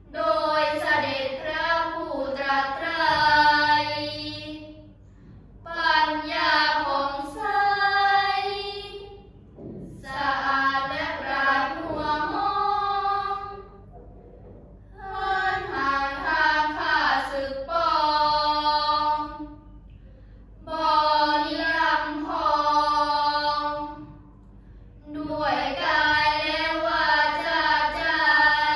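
A group of girls chanting prayers together in Thai, melodic and in unison, in six phrases of a few seconds each with short pauses for breath between them.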